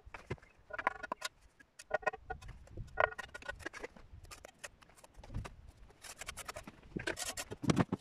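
Steel brick trowel knocking and scraping on concrete blocks. There are several short, ringing metallic taps in the first three seconds. Near the end comes a heavier knock and scrape as a concrete block is set down in place.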